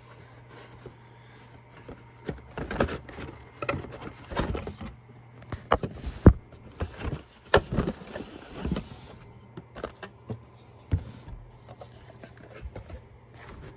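Packing being pulled out of a box by hand: irregular rustling, scraping and light knocks of foam and plastic, over a low steady hum.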